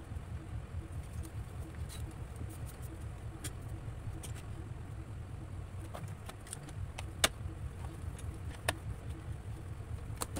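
Steady low hum with a faint regular pulse, over the light clicks and knocks of a plastic oil-pastel box being handled and opened, and pastels rattling inside it. The two sharpest clicks come about seven and nearly nine seconds in.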